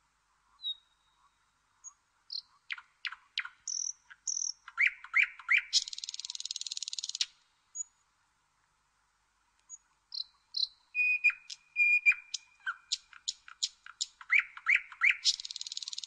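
Nightingale singing: phrases of rapid clicks, clear whistles and quick rising notes that end in a dry, buzzing rattle, with a pause of about two seconds between phrases.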